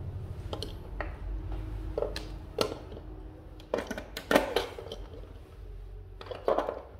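Light clicks and knocks scattered across several seconds, a few ringing briefly, from handling a wooden chime clock case while AA batteries are fitted into its movement.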